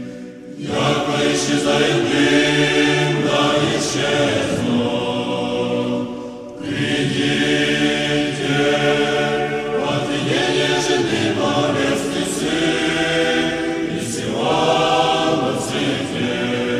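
Orthodox church choir singing a hymn a cappella in sustained chords, with brief breaks between phrases about half a second in and around six seconds in.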